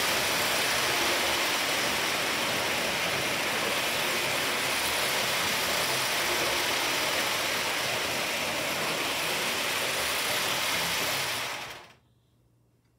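Two tinplate toy trains, a clockwork Hornby 0-4-0 and a Marx 2-4-2, running round O27 tubular steel track with their tin coaches: a steady, dense metallic rattle of wheels on the rails and running gear. The sound cuts off suddenly near the end.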